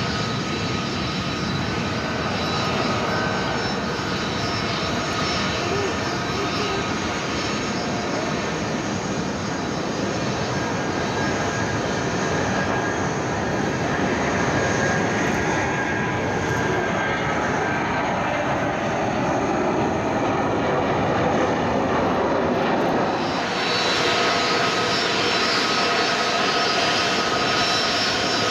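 Airbus A330-223 airliner's Pratt & Whitney PW4000 turbofan engines running with a steady rushing noise and a thin whine. The sound grows louder and brighter about three-quarters of the way in.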